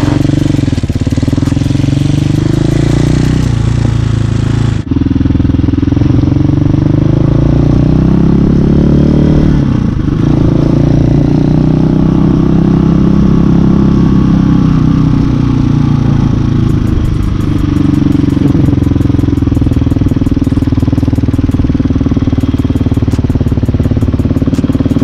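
Hawk 250 dual-sport motorcycle's single-cylinder four-stroke engine running on the move, its pitch rising and falling with throttle and gear changes, with a momentary break about five seconds in.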